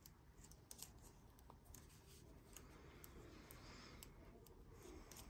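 Faint, scattered clicks and light rubbing from metal knitting needles and yarn as stitches are slipped and purled, over a low room hum.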